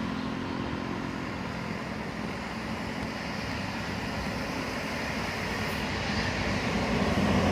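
Roadside traffic on a hill road: a passing bus's engine hum fades away at the start, leaving tyre and road noise, then another vehicle approaches and grows louder near the end.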